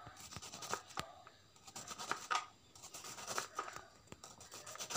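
Kitchen knife slicing through a crosshatch-scored onion to dice it, a run of short crisp cuts and light taps on the cutting board.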